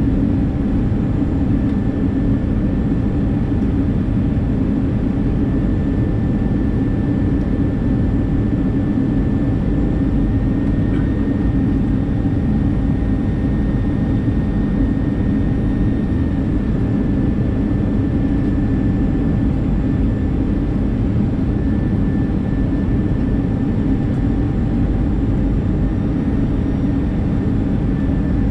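Airliner cabin noise of an Airbus A319 with CFM56 jet engines: a steady, loud rush of engine and airflow noise with a steady fan whine over it.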